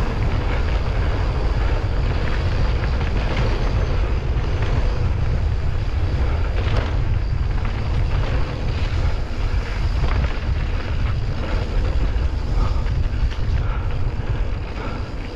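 Wind buffeting the camera's microphone as a mountain bike rolls along a dirt trail, with tyre noise on the dirt and a few short clicks and rattles from the bike.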